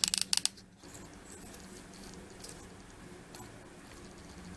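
A few light clicks and rustles of small craft materials being handled in the first half-second, then quiet room hum with an occasional faint tick.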